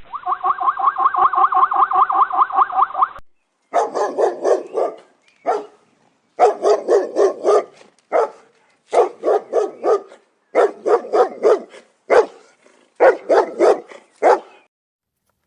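Animal calls in two clips. First comes a fast, even run of pulsed calls, about nine a second, which stops abruptly about three seconds in. Then, after a short gap, come repeated groups of four or five quick bark-like calls, each group under a second long.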